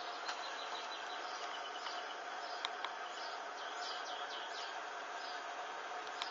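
A small flame burning through synthetic lace panties: a steady hiss with a few sharp crackles, under faint short high chirps throughout.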